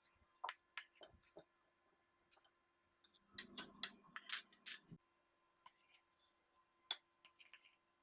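Sharp clicks and clinks of small hard objects: two about half a second in, a quick run of about six in the middle over a faint low hum, and a few softer ones near the end.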